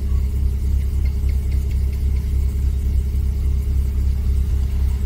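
A steady low hum with no change or break.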